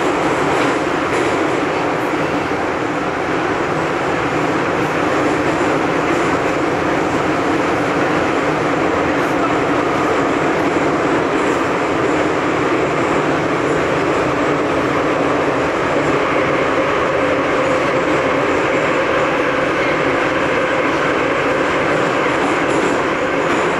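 Loud, steady running noise of a metro train in a tunnel, heard from inside the carriage.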